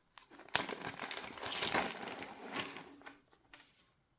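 Packaging crinkling and rustling as it is handled and opened, starting with a sharp snap about half a second in and fading out after about three seconds.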